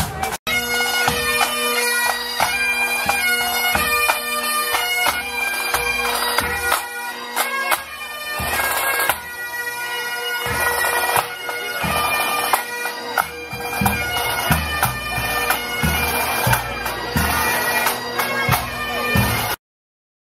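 Pipe band playing: Highland bagpipes sounding a tune over their steady drones, with a bass drum beating under it. The music cuts off suddenly near the end.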